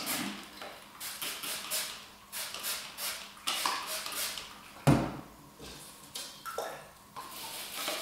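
Hand trigger spray bottle squirting cleaning spray into a clear plastic tube bird feeder: a string of short sprays a fraction of a second apart, with a single knock about five seconds in.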